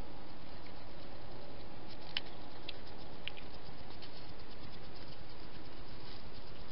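Soft patter and rustling from a wild hedgehog moving right by the microphone over dry grass, with a few sharp ticks about two seconds in and fainter scattered ones later, over a steady hiss.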